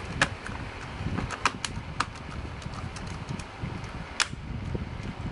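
Plastic bottom case of an MSI GP62MVR laptop snapping onto the chassis as it is pressed shut along its edge: an irregular series of sharp clicks, a few louder snaps among them. Low rumbling handling noise runs underneath.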